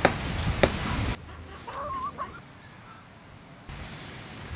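Knife work on a wooden board, with two sharp knocks in the first second. A chicken clucks briefly about two seconds in, against outdoor background noise.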